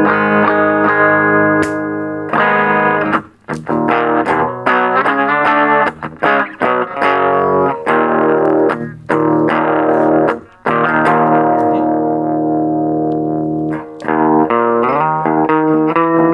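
Electric guitar played through a Marshall Origin 5C, a 5-watt all-tube combo with an EL84 power tube and an 8-inch Celestion speaker, set for a distorted tone. Long ringing chords alternate with choppy, stop-start strummed chords, with a long held chord near the middle.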